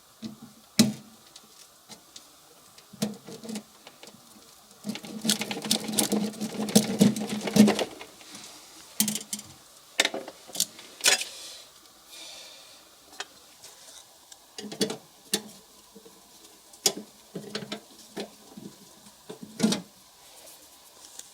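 Hand work on an air conditioner unit being dismantled: scattered clicks and knocks of tools and metal parts, with a rattling clatter from about five to eight seconds in.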